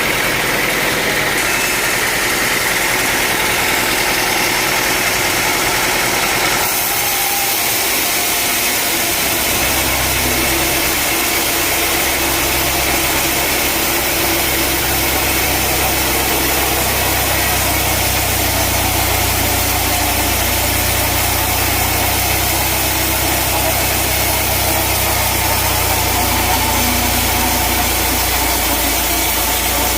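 Sawmill machinery running with a steady engine and a constant mechanical noise. About ten seconds in, a deeper, steady engine hum sets in and holds.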